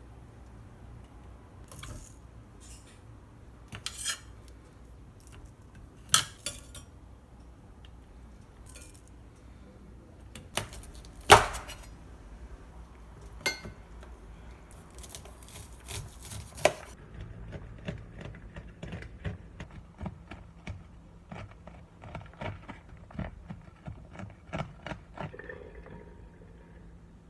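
Kitchen utensils and dishes clinking and knocking: scattered sharp clinks, the loudest about halfway through, then a quicker run of lighter taps in the second half.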